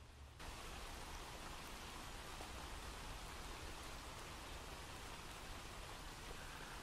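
Faint, steady hiss of rain falling on a wet street, cutting in abruptly about half a second in.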